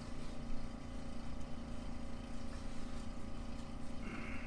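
Steady low mechanical hum at a constant pitch, like a motor running.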